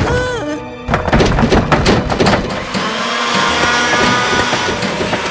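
A short wavering tone, then a cartoon electric blender starts suddenly about a second in and runs with a steady whir, churning its contents, under background music.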